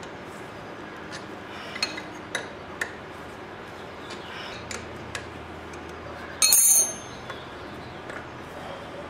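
Metal clicks and clinks from a motorcycle chain breaker and rivet tool being cranked down with a wrench to flare a chain rivet. A few light clicks come in the first three seconds, then one louder metallic clink with a high ring about six and a half seconds in.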